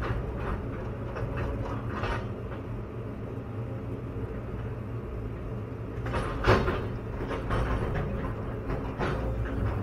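Caterpillar 316EL excavator's diesel engine running steadily, heard from inside the cab, with a few clunks and knocks from the machine as it works. The loudest knock comes about six and a half seconds in.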